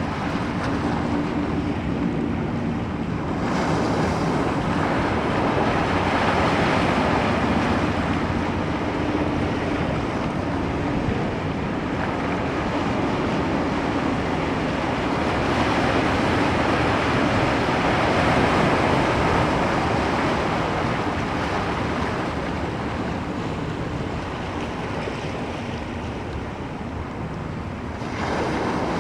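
Ocean waves breaking on a shore, a continuous wash of surf that swells louder twice, about a fifth of the way in and again past the middle.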